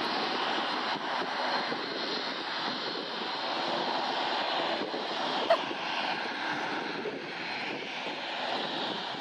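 Airbus A320neo's Pratt & Whitney geared turbofan engines running steadily at low taxi thrust as the airliner taxis, heard from a distance as an even jet rush. A single short sharp blip sounds about halfway through.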